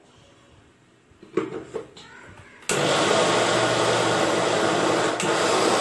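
Electric mixer grinder switched on about two and a half seconds in: its motor starts suddenly and runs loud and steady, grinding green chillies, curry leaves, garlic and ginger in a small steel jar. A knock and a brief clatter come just before it starts.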